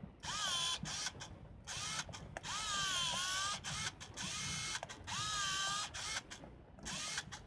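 Canon Autoboy Epo compact film camera's power zoom motor whirring in about seven short runs as the 28–90 mm lens is driven in and out. Its whine bends up and down in pitch within each run.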